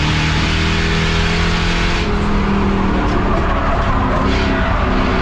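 Race car engine running hard at speed, a loud steady drone whose pitch drifts slightly up and down.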